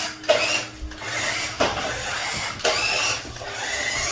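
Small electric motors of a battery-powered line-following toy robot whirring, with a few short rising whines and clicks.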